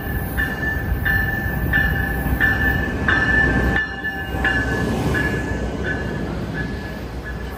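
Siemens SC44 Charger diesel-electric locomotive pulling a passenger train into the station, its engine and wheels rumbling as it passes close by. A bell rings in steady strokes about every 0.7 s, fading as the locomotive goes past.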